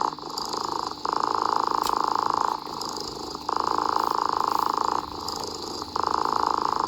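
Domestic cat purring: a fast, fine rattle that swells louder and softer in a slow breathing rhythm, loud for about a second and a half, then softer for about a second, about three times.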